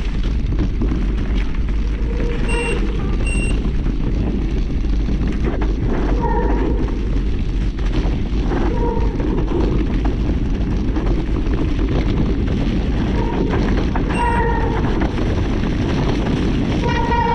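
Mountain bike riding down a rough dirt trail: steady heavy wind buffeting on the microphone and rumble from the tyres. Several short high-pitched squeals come through.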